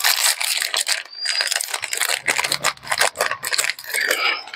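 Foil-lined plastic wrapper of a donut snack cake crinkling and crackling as it is torn open and peeled back to free the cake: a dense, continuous run of rustles and sharp crackles.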